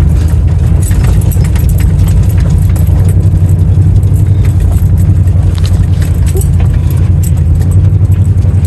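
A pickup truck's engine and drivetrain running steadily under load, climbing a steep rough track in four-wheel drive, heard from inside the cab as a heavy low drone. Irregular light rattling and clinking from loose items jostling as the truck bumps along runs over it.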